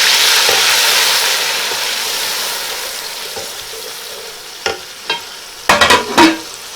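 Loud sizzle of water hitting dark-browned onions in hot oil, the hiss dying away gradually. Near the end a stirring spoon knocks against the pan several times.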